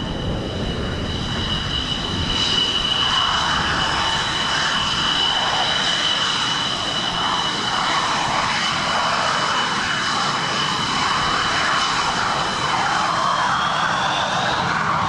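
JF-17 Thunder fighter's single turbofan running during a display pass: a high steady whine over a loud jet rush that swells about three seconds in, the whine rising slightly near the end.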